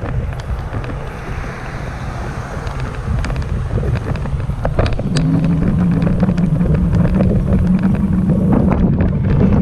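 Wind buffeting the microphone while riding an electric bike, a steady low rumble with scattered crackles. About halfway through, a steady low tone sets in and holds.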